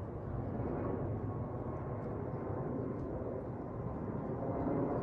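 Jet airliner flying overhead at altitude: a steady, even rush of engine noise that swells a little near the end.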